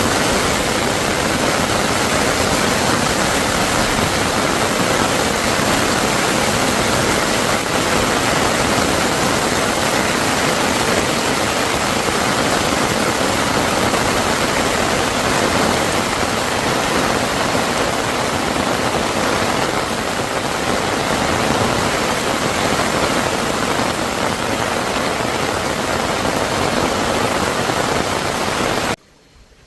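A valley stream's water rushing steadily, a loud even wash of noise that cuts off abruptly near the end.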